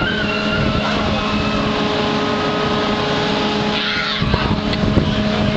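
Steady loud rush of air on the microphone mixed with the constant hum of the Zulu wheel ride's machinery as it spins with the rider aboard.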